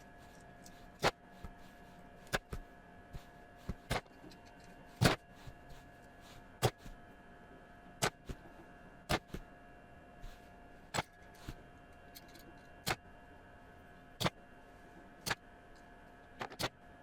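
Felt-tip marker pens clicking and tapping on paper while coloring: sharp, separate clicks about once a second, unevenly spaced and some louder than others.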